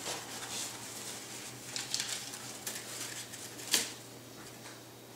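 White packing tissue rustling and crinkling as a statue's hand piece is dug out and handled, with one sharp click about three and a half seconds in.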